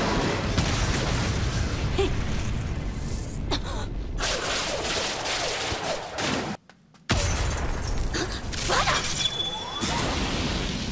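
Anime fight sound effects of stone shattering and crumbling, with heavy booms, sharp impacts and whooshes of flying rock. The sound cuts out for about half a second a little past halfway, then comes back as loud as before.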